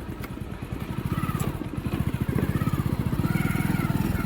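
Hero Passion Pro motorcycle's single-cylinder four-stroke engine running under way with a fast, even firing pulse, picking up about a second in as the clutch is let out. It runs without the rattle it made on clutch release before, after new clutch plates were fitted.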